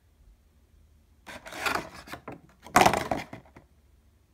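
Two short rubbing, scraping sounds about a second apart, the second louder: a hand handling a vinyl figure on a wooden tabletop.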